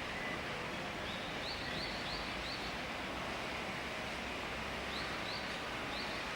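Common kingfisher giving two quick series of short, high, rising chirps, about five or six notes each, over a steady background hiss.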